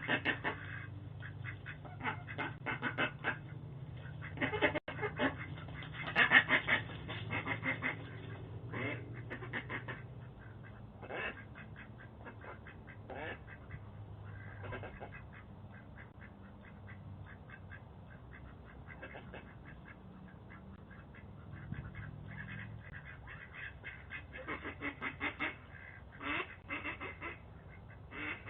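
Ducks quacking in rapid runs of harsh calls as they fight, loudest about six seconds in, quieter in the middle and busy again near the end. Heard through a Ring doorbell camera's microphone, which cuts off the high end.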